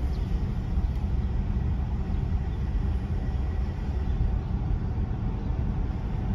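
Steady low rumble of a car driving, heard from inside the cabin: tyre, road and engine noise.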